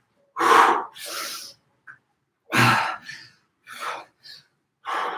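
A man's short, forceful breaths, about five in a steady rhythm, from the exertion of fast standing knee-to-elbow crunches.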